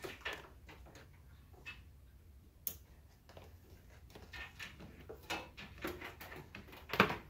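Irregular small clicks and plastic ticks of flat Cat6 patch cables being handled and their RJ45 plugs pushed into the network switch's ports, with one louder click near the end.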